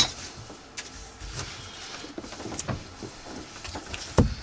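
Paper being torn and handled on a desk: a sharp rip or click at the start, then scattered light rustles and taps, and a dull thump near the end.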